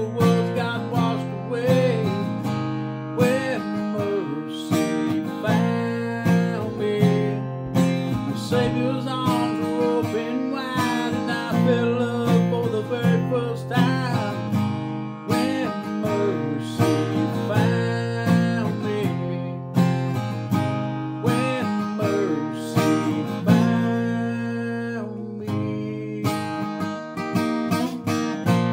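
Acoustic guitar strummed steadily, accompanying a man singing a contemporary gospel song in places.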